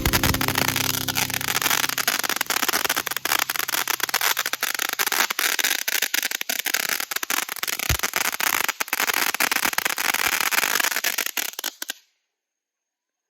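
Small ground-level firework going off: a dense hissing crackle full of rapid pops, with one heavier thump about eight seconds in. It cuts off suddenly about twelve seconds in.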